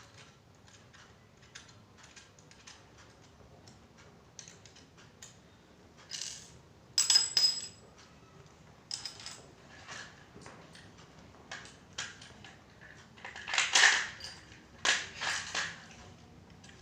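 Small metal clicks and clinks of airgun parts being handled, with louder rattling clatters about seven seconds in and again near the end.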